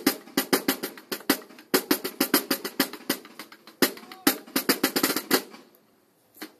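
Marching drum corps of snare drums and bass drums playing a fast cadence with rolls. The drumming stops about five and a half seconds in, and one last hit follows near the end.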